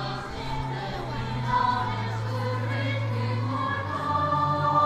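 A choir singing a religious hymn in long held notes.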